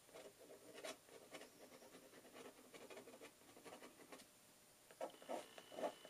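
Faint scratching of a fountain pen nib drawing on cotton watercolor paper, in short irregular strokes. A few strokes stand out about a second in and near the end.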